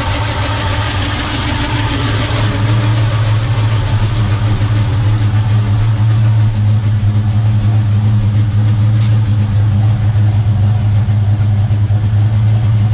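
Holden Commodore engine with a gear-driven camshaft idling steadily as it warms up, not yet tuned. A higher hiss over it stops about two seconds in.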